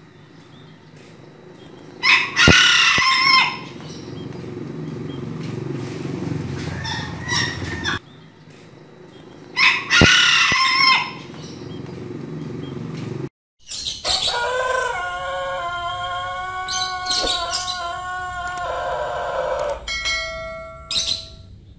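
Domestic roosters crowing. One rooster crows twice, about 2 and 10 seconds in, each crow lasting about a second and a half. After a cut, another rooster gives a long drawn-out crow of about six seconds, then a short call near the end, over a steady low background noise.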